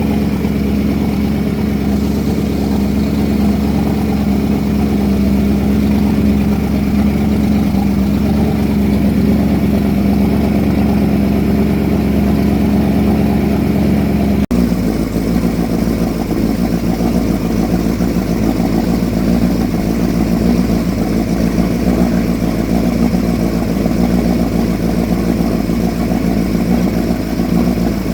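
A boat's motor running steadily at cruising speed, a constant engine drone. About halfway through it cuts abruptly to a slightly lower-pitched drone of the same kind.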